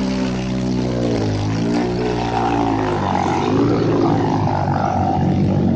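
Dirt bike engine running in a river crossing, its pitch dipping and rising again once or twice as the throttle is worked. About halfway through the steady tone turns rougher and noisier, mixed with water churning around the wheels.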